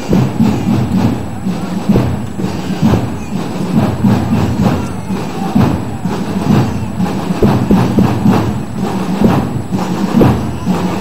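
Parade noise: a loud mix of crowd sound and marching music, with irregular heavy drum thuds.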